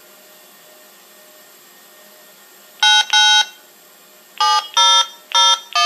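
DTMF touch-tones keyed on a two-way radio, a command sequence telling the repeater controller to turn on logic port 1. After about three seconds of faint steady hum come two short beeps, a brief pause, then four more, each a fraction of a second long.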